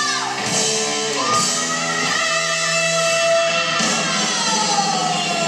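Rock music led by an electric guitar riff, with notes sliding in long pitch bends: a rising slide early, then a long falling slide near the end.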